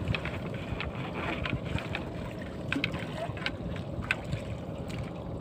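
Water splashing and sloshing around a boat's bamboo outrigger as a boy wades beside it, with a few small sharp splashes and wind rumbling on the microphone.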